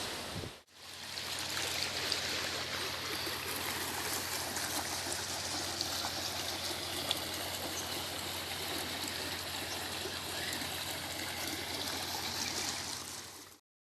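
Water running steadily, like a flowing stream, with a faint low hum underneath. It starts after a short break about half a second in and cuts off abruptly near the end.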